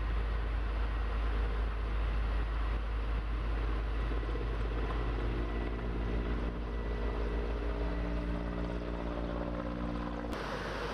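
An engine running over a heavy low rumble. About halfway through, a steady humming engine tone comes in, and the sound cuts off abruptly near the end.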